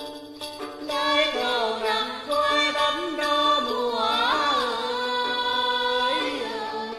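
A woman singing a Vietnamese folk-style melody to a plucked đàn tính lute. After a second of plucked notes, the voice comes in and holds long, bending phrases until near the end.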